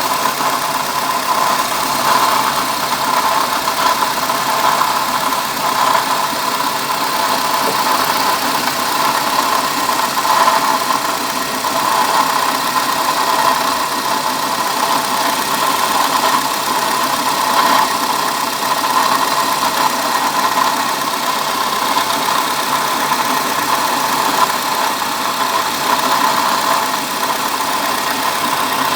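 Car engine idling steadily, with the noise of a water pump that is going bad.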